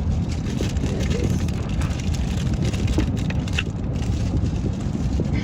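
Steady low rumble of a car interior, with a few light clicks and rustles.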